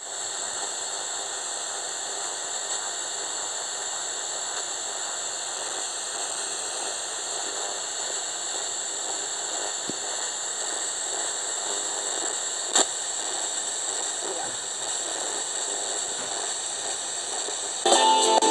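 Radio static hissing steadily as a receiver is tuned between stations, with a single click about two-thirds of the way through and a brief louder snatch of a station coming in near the end.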